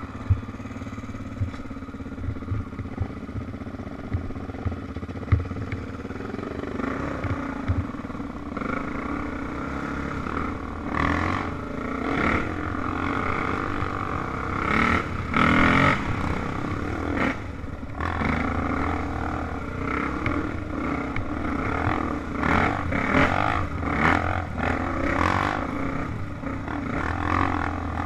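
Dirt bike engine running under varying throttle as it is ridden up a rough trail, revving up and down repeatedly, with a few sharp knocks in the first few seconds.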